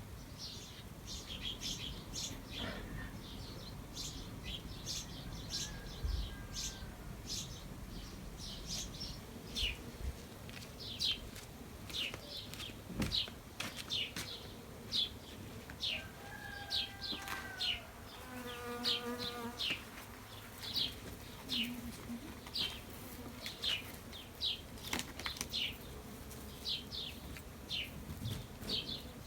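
Small birds chirping repeatedly, short high notes a few each second, with a faint drawn-out call from another animal about two-thirds of the way through.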